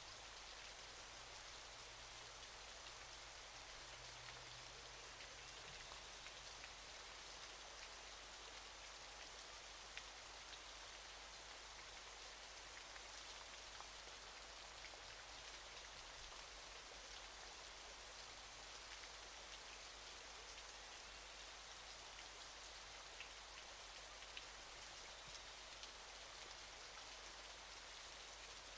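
Quiet, steady waterfall: an even hiss of falling water with faint scattered splashes.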